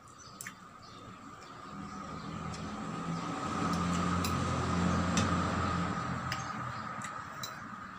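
A motor vehicle engine passing by, growing louder over about three seconds and then fading away, with a few light clicks of a spoon and dishes.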